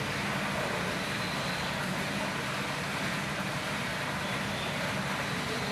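Steady background noise, an even hiss with a low hum underneath, holding level with no distinct calls or knocks.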